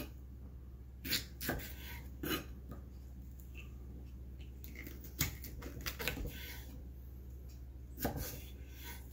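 Chef's knife slicing a red bell pepper into strips on a wooden cutting board: several separate knocks of the blade meeting the board, unevenly spaced a second or more apart.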